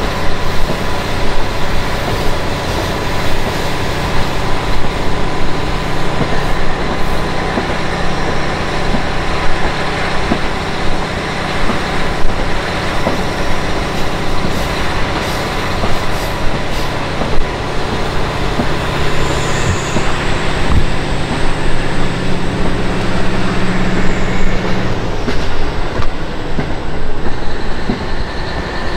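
KiHa 40 diesel railcar heard from inside the car while under way: the diesel engine's steady drone over rail and wheel running noise. Near the end the engine note swells briefly and then drops away, leaving the running noise.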